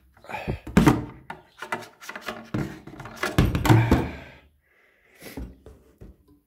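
Cardboard scraping and rustling with a run of knocks and thumps as a Stihl Rollomatic E chainsaw guide bar is worked out of a tight-fitting box. The noise stops after about four and a half seconds, followed by a few softer bumps.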